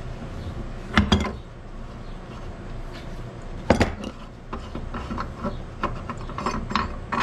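Metal tools clanking and clinking against a Kawasaki Prairie 300 rear differential housing as the nut inside it is worked loose with a homemade flat-stock tool and bar. Two sharp double knocks come about a second in and near the four-second mark, then a run of lighter clinks, over a steady low hum.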